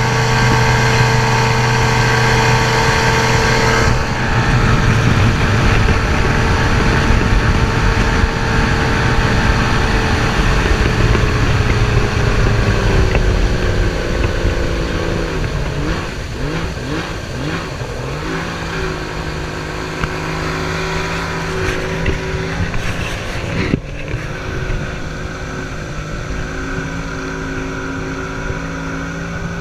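Outboard motor running hard on a small race boat, holding a steady high note, then dropping in pitch about halfway through as it throttles back, and settling into a lower steady run.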